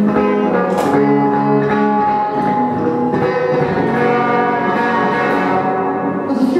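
Live instrumental music: a melody of long held notes over a guitar, played without singing.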